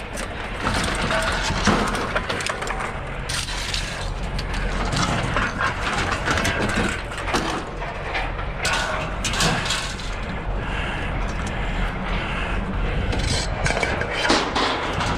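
Scrap metal clattering and banging in irregular crashes and knocks, over the steady low hum of an engine running.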